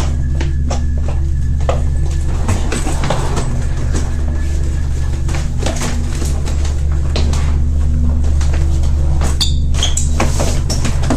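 Background music score with a steady low drone, short repeated bass notes and scattered sharp percussive clicks.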